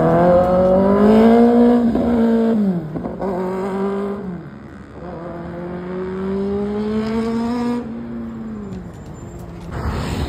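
Sport motorcycle engines revving hard. A high engine note is held three times and then falls away as the throttle is closed, the longest hold lasting about three seconds near the end.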